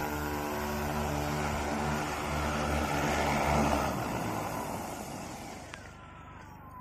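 XAG agricultural spray drone's rotors running in a steady multi-tone hum with rushing propeller wash as it comes down to land, loudest just before touchdown. Near the end the level drops and a falling whine follows as the motors spin down on the ground.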